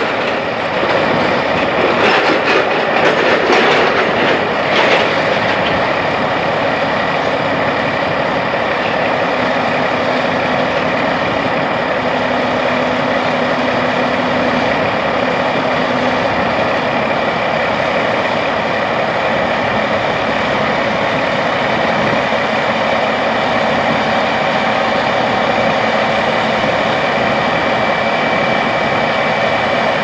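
570-horsepower John Deere 9570RX articulated track tractor running with a grain cart, with a burst of rattling clicks about two to five seconds in as it pulls up. Its engine then runs steadily while the cart's unloading auger drives wheat into a truck.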